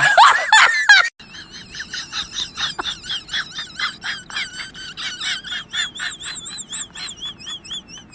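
A loud wailing laugh that cuts off about a second in, followed by a long run of quieter, high-pitched warbling squeaks, about three or four a second, that seem to be another very high, squeaky laugh sound effect.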